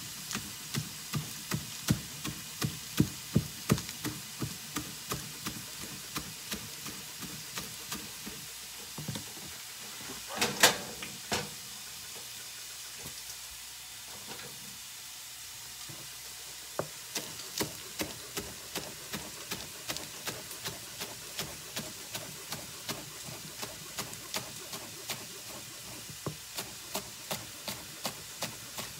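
A chef's knife chopping green onions on a plastic cutting board, steady knife strikes about two or three a second. The chopping stops about eight seconds in, a louder clatter comes a couple of seconds later as the board is moved, and the chopping resumes about seventeen seconds in, quieter. A steady frying sizzle runs underneath.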